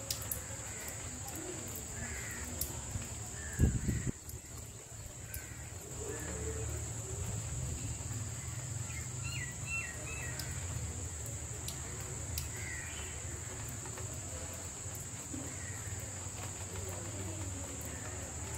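Crows cawing now and then over a steady high hiss, with a small bird chirping a few quick notes near the middle. A dull low thump about four seconds in is the loudest sound.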